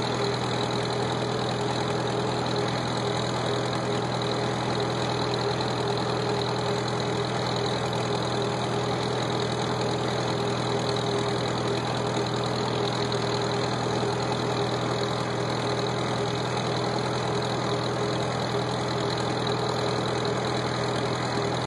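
Farmall H tractor's four-cylinder engine running at a steady, even speed as the tractor drives along, its exhaust close by through the upright muffler stack.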